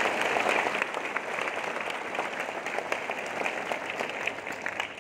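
Audience applauding, a dense patter of many hands clapping that gradually thins and fades toward the end.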